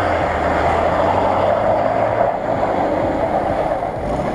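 Lada Niva's engine running as the 4x4 sits bogged in a mud pit, its revs dropping at the start and then holding steady.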